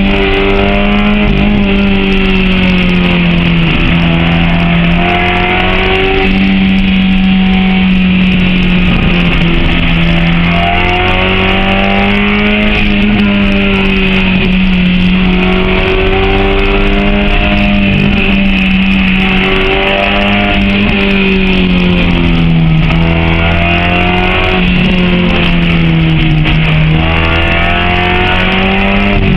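Honda H22A four-cylinder engine in a Civic being driven hard uphill: it revs up under load, its pitch climbing steadily, then drops sharply at each gear change, over and over.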